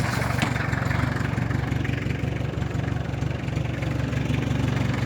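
Jeep engine idling steadily.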